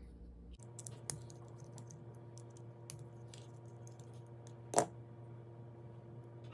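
Small metal parts of a folding knife clicking and tapping lightly as they are handled during disassembly, with one louder tap just before five seconds in.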